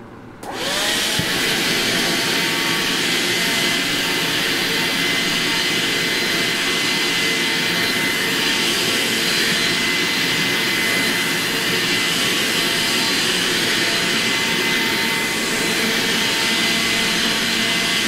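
Makita CL100D 12V cordless vacuum switched on about half a second in, its motor whine rising quickly to a steady pitch. It then runs steadily with a high whine and airflow hiss as the nozzle sucks at bedding fabric.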